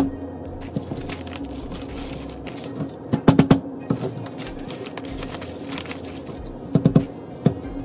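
A glitter-coated tray tapped on its edge against a newspaper-covered table to knock off loose glitter: a quick cluster of sharp knocks about three seconds in and another near the end. Newspaper rustles as it is folded up.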